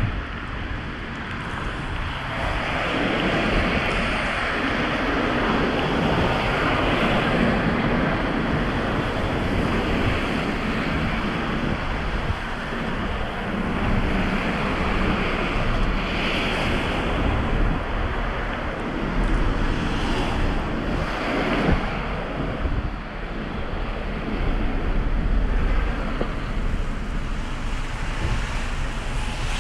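Storm wind blowing across a handheld action camera's microphone: a steady rushing noise with low buffeting that swells and eases in gusts.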